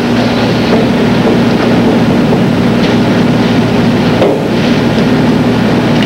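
Steady din of a roller-derby arena: crowd noise mixed with the rumble of roller skates on the banked track, with a steady low hum under it.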